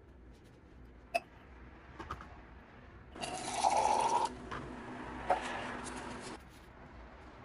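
Water poured from a glass electric kettle into a stainless steel cup, a steady splashing pour of about three seconds that starts about three seconds in and is loudest at its start. A sharp click comes about a second in.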